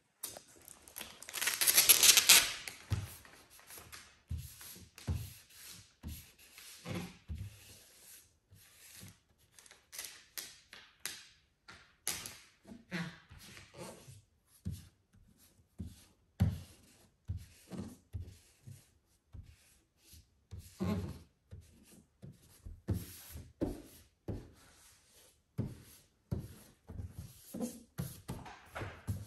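Hands rubbing and smoothing a wet vinyl hood decal against the car's bonnet, fingers pushing water out from under the film in short, irregular strokes. A louder, longer rush of rubbing noise comes about two seconds in.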